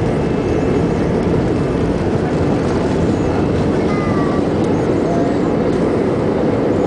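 Steady, loud engine and runway noise heard from inside the cabin of an Airbus A320 accelerating on its takeoff roll, its engines at takeoff power.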